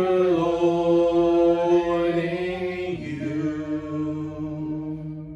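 Unaccompanied singers holding the long final notes of a worship song, with a change of chord about three seconds in before the sound fades away near the end.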